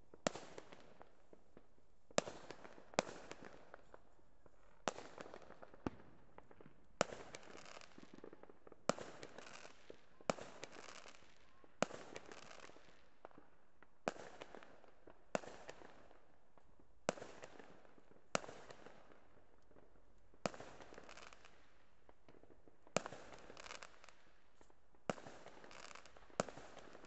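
Aerial fireworks bursting overhead: a sharp bang every second or two, about seventeen in all, each trailing off over about a second.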